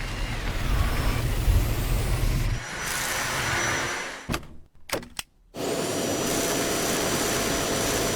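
Vacuum cleaner motors running steadily in several short cut-together stretches, with a brief break a little before the middle.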